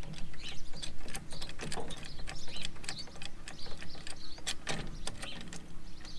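Hydraulic trolley jack being pumped by its long handle to lift a car, with a run of sharp mechanical clicks at each stroke.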